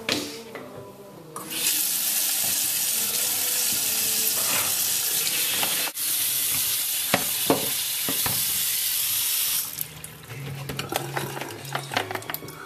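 Kitchen tap running in a steady rush onto carrots, beets and apples in a plastic colander in a stainless steel sink, with a few knocks as the vegetables are handled. The water shuts off near the end, leaving clatter of the colander and vegetables being moved.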